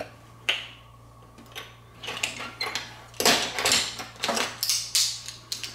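Handling noises as a plastic oil bottle and a ring of plastic measuring spoons are picked up: a single click about half a second in, then a run of short clatters and scrapes in the second half.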